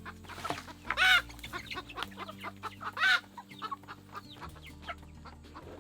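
A flock of young chickens clucking steadily, with two loud, short calls standing out, about a second in and again about three seconds in.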